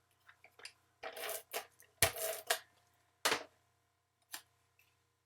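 Card-making pieces and tools being handled on a tabletop: a handful of short knocks and rustles, the sharpest knock about two seconds in.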